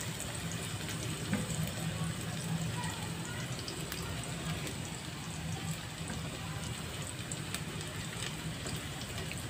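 Diced onion, garlic and sliced Chinese sausage sizzling gently in oil in a pan, a steady crackle with small scattered pops.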